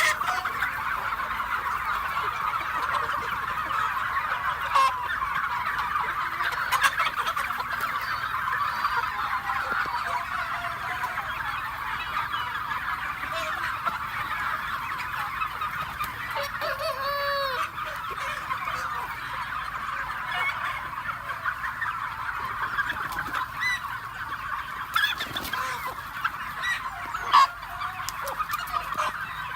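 A flock of free-range chickens calling continuously, many overlapping clucks and cheeps, with a louder single call about halfway through.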